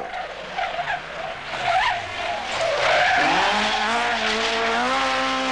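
Rothmans Ford Escort Mk2 rally car driven flat out: tyres squealing as it slides through a bend, then about halfway through the four-cylinder engine note rises as it accelerates hard and holds at high revs.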